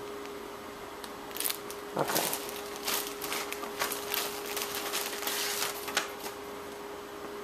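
Clear plastic bag of papers rustling and crinkling as it is handled and set down, in irregular bursts for about five seconds, starting a little over a second in. A faint steady hum runs underneath.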